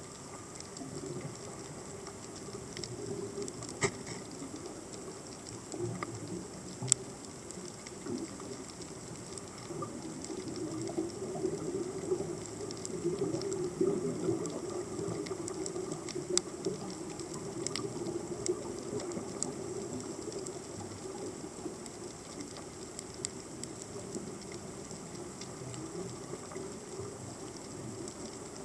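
Underwater ambience picked up by a submerged camera: a steady low rumble of moving water with scattered sharp clicks and crackles, a little louder between about ten and twenty seconds in.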